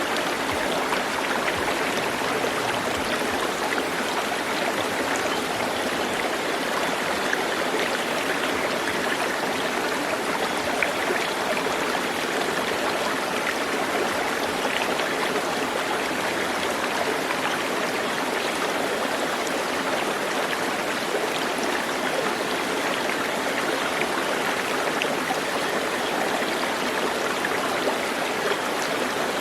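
Running water: a steady, even rush of a stream flowing, with small splashes and trickles.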